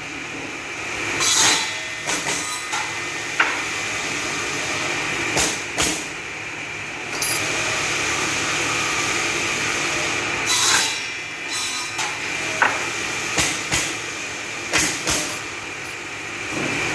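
Automatic twin-blade wood-cutting machine running steadily, with repeated short louder bursts as the blades cut and a few sharp knocks. The running noise steps up a little about seven seconds in.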